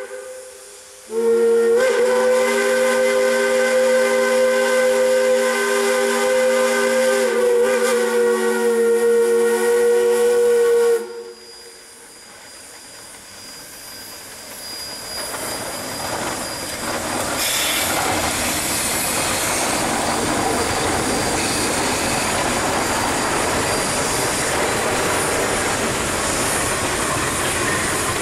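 Shay geared steam locomotive blowing its chime whistle, one long blast of several notes for about ten seconds. After it stops, the locomotive and its train pass close by: steam hiss and exhaust with rumbling wheels, building and then holding steady.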